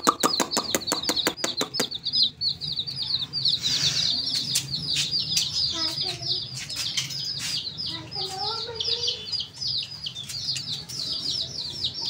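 Baby chicken chicks peeping continuously, a dense flock of short, high, falling peeps. Over the first two seconds a rapid run of clicks, about seven a second, sounds alongside them.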